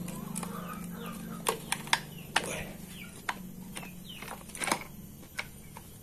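Sharp plastic clicks and knocks from a Fujiyama hammer drill's housing as parts are handled and fitted together during reassembly, about eight separate clicks at uneven intervals.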